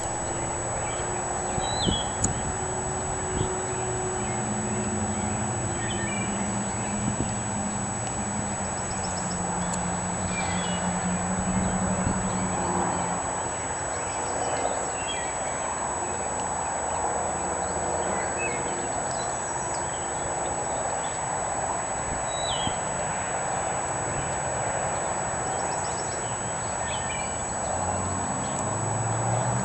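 A horse ridden over arena sand, its hoofbeats under a steady outdoor rush, with scattered bird chirps.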